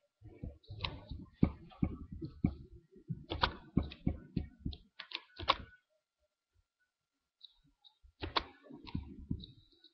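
Irregular clicks and light knocks, several a second, that stop for about two seconds past the middle and then start again.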